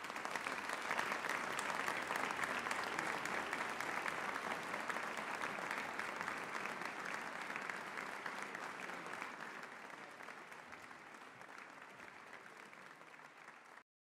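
Live concert audience applauding: dense clapping that gradually thins out over the second half and cuts off abruptly near the end.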